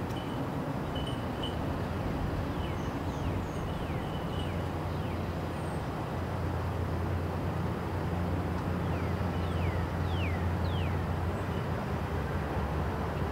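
Diesel freight locomotive approaching slowly, its engine a steady low drone that grows a little louder about halfway through. Birds call over it with short, falling whistles, most of them in the second half.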